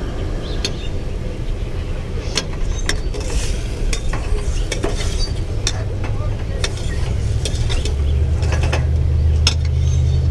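Metal utensils stirring, scraping and clinking irregularly against a stainless steel saucepan. A steady low rumble runs underneath and grows louder near the end.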